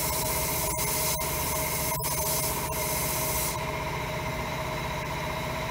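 Sandblast cabinet gun blasting: a loud hiss of air and abrasive with a few brief breaks, cutting off about three and a half seconds in. A steady machine hum runs underneath.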